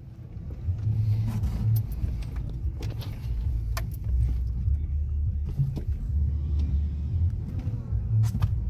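Pickup truck engine heard from inside the cab, running under load as the truck struggles up a snowy, slushy driveway. The low rumble swells about half a second in and holds, with scattered light clicks and rattles over it.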